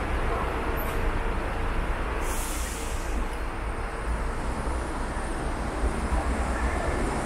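Steady city traffic passing through a junction on wet roads, a continuous low rumble with road noise. A short high hiss cuts in a little over two seconds in.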